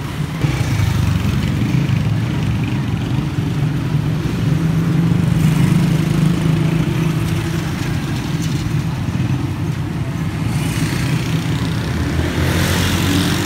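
Engine of the vehicle being ridden in, running steadily at a constant low hum while moving along a town street, with a brief rise in rushing noise near the end as traffic goes by.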